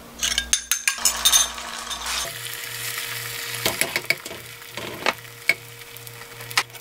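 A fork beating eggs in a glass bowl with quick clinks, then from about two seconds in the beaten egg sizzling steadily in an oiled nonstick frying pan as it sets into a thin egg sheet.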